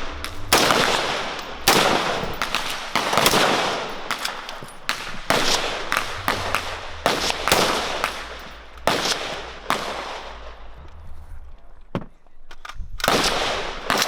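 Irregular gunshots, about one to two a second, each with an echoing tail, with a short lull about ten to eleven seconds in before the shots resume.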